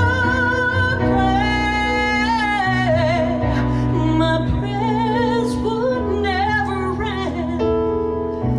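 A woman singing live, holding notes with vibrato and sliding through quick melodic runs over sustained accompaniment chords.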